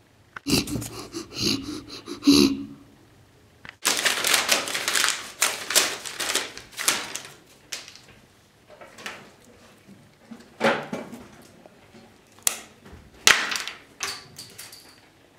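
A sheet of paper being crumpled and torn in several noisy bursts, the longest lasting a few seconds, with a few sharp knocks near the end.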